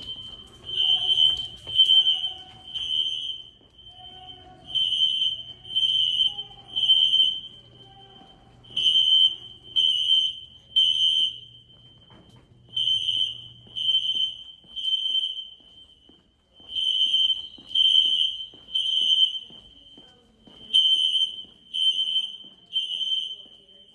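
Building fire alarm sounding a high-pitched beep in the temporal-three evacuation pattern: three beeps, a pause, then three more, repeating about every four seconds. The system has been set off as part of a fire alarm inspection test.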